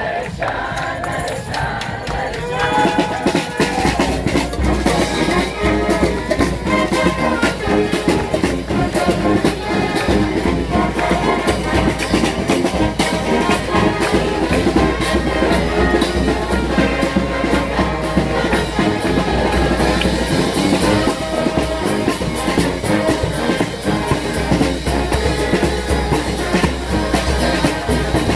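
Street brass band playing: horns over drums keeping a steady beat. The band gets louder about three seconds in.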